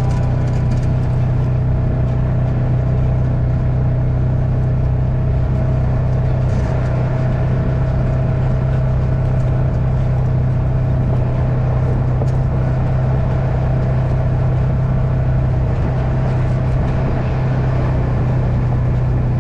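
Vehicle engine running steadily while driving at an even speed: a constant low drone with a fainter steady tone above it and no change in pace.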